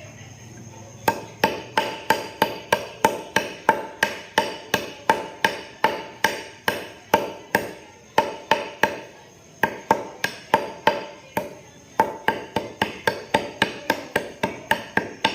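Steady hammering: sharp blows about three a second, each with a short ringing tone. It starts about a second in and pauses briefly twice.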